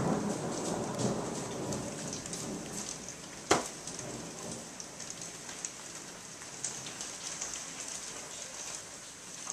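Steady rain falling with many small drop ticks, while a rumble of thunder dies away over the first two or three seconds. There is one sharp tap about three and a half seconds in.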